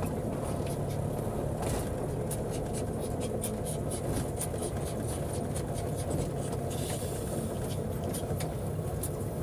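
Subaru 360's small air-cooled two-stroke twin running steadily while the car drives along, with scattered light ticks over the hum.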